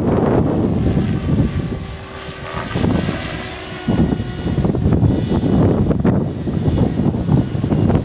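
Strong wind buffeting the microphone in rumbling gusts, over the steady high whine of a CopterX 500 electric RC helicopter's motor and rotor. The gusts ease for about two seconds in the middle, and the whine comes through clearly there.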